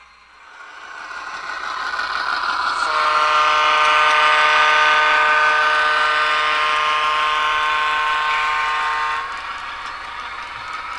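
HO-scale model locomotive's QSI Titan sound decoder, running a beta ALCO 244 sound file, sounding a multi-note chime air horn in one long blast of about six seconds, starting about three seconds in, over the diesel engine sound as the model passes.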